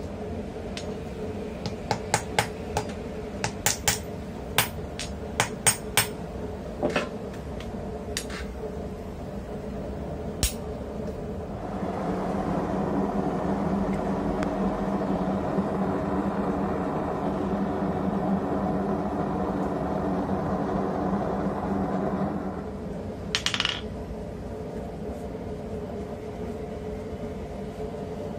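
Sharp metallic clinks and taps of steel pieces knocking together for the first ten seconds or so. Then a forge runs with a steady hum for about ten seconds, followed by a brief scrape.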